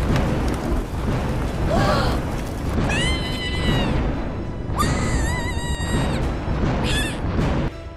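Edited-in cartoon sound effects over background music: a continuous rumbling rush of noise with the swirling dust cloud. Three short pitched effects rise, hold and fall along the way, and the rush cuts off just before the end.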